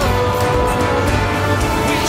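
Upbeat pop-style worship song playing, with a voice holding a long sung "ohh" for about the first second over the backing band.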